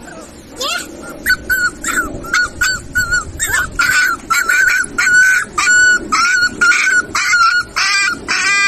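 Rottweiler puppies yelping in a rapid series of short, high yips, about three a second. Near the end the calls grow longer and waver.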